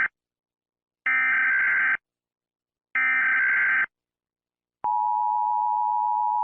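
Emergency Alert System SAME header tones: the tail of one burst and then two more, each a harsh buzzy digital squawk about a second long with a second's gap between them. About three-quarters of the way in the steady two-tone EAS attention signal starts and holds.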